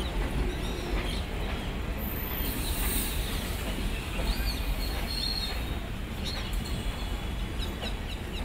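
Passenger train coaches rolling slowly past with a steady low rumble. Many short bird chirps run over it.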